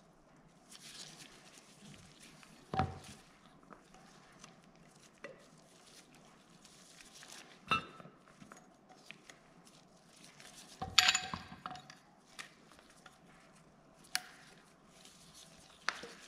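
Metal pushrod tubes for an air-cooled VW engine being handled and set down on the workbench while rubber seals are pushed onto their ends: a few separate light knocks and clinks over quiet rubbing, the loudest cluster about eleven seconds in.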